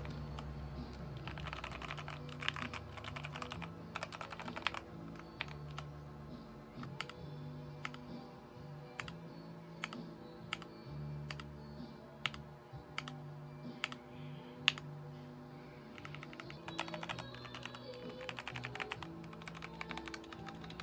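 Magegee MK-Star61 mechanical keyboard being typed on: fast runs of key clicks near the start and again near the end, with slower single key presses in between. Background music plays underneath.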